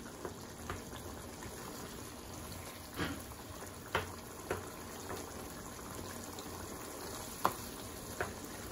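Chicken and tomato curry sauce bubbling and sizzling in a nonstick frying pan on high heat, while a wooden spatula stirs it and knocks against the pan several times.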